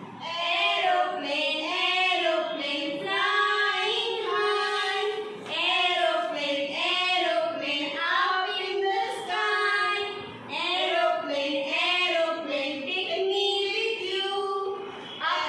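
A high voice singing a children's nursery rhyme unaccompanied, in short melodic phrases with brief pauses for breath.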